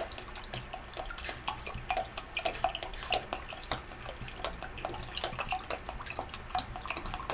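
Water pouring from an upended 2-litre plastic soda bottle and splashing into the part-filled plastic reservoir of a pet drinking fountain, in quick, irregular gulps.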